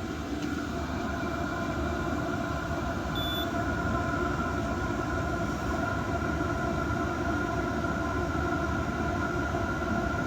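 Diesel air heater running steadily: an even rumble from the burner and blower fan, with a constant hum.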